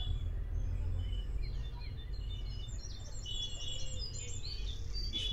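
Small birds chirping and twittering in many short, repeated calls over a steady low rumble.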